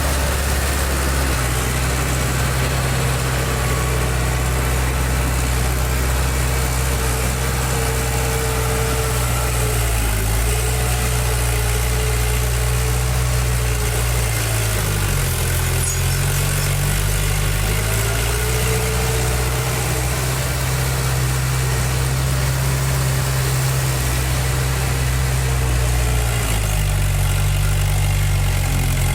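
Heavy construction machinery's diesel engine running steadily, its engine speed shifting down and up a few times.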